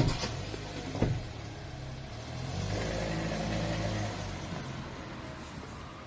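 Car engine running, with a sharp knock right at the start and another about a second in. The engine grows louder for a second or two in the middle, then eases off.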